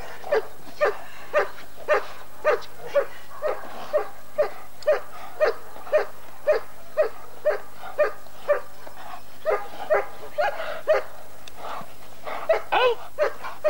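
German Shepherd barking steadily at a helper's bite sleeve during protection-work agitation, about two loud barks a second, with a short pause near the end before a quicker flurry of barks.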